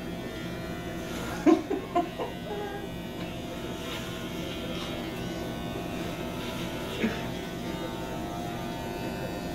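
Electric hair clippers running steadily with a buzzing hum as they cut through long hair close to the scalp. A short voice sound cuts in about a second and a half in.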